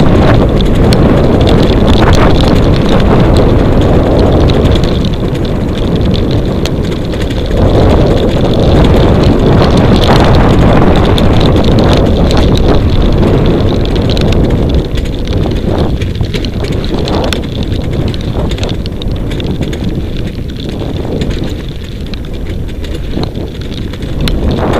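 Heavy wind buffeting on the microphone of a camera carried on a fast-moving dog rig, over the rumble and rattle of the rig running along a dirt track behind a husky team. The noise eases somewhat in the second half.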